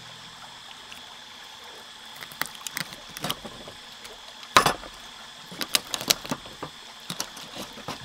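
Scattered sharp clicks and knocks of objects being handled, the loudest about halfway through, over a steady background with a faint, even high-pitched tone.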